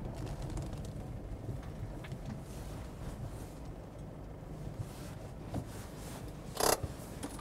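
Small Citroën C15 van driving slowly along a gravel track and pulling up, a low steady engine and tyre noise. A short sharp noise comes near the end.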